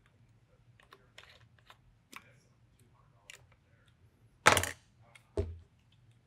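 Small clicks and taps of a T-handle hex key working on an air rifle's action, then about four and a half seconds in a loud metallic clatter as the tool is set down on the bench, followed a second later by a duller knock.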